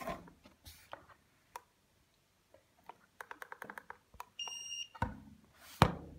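Buttons of a Meditech SpirOx handheld spirometer being pressed: scattered clicks, then a quick run of about eight clicks around three seconds in. The device gives one high electronic beep lasting about half a second. Rubbing from the device being handled and a sharp knock follow near the end.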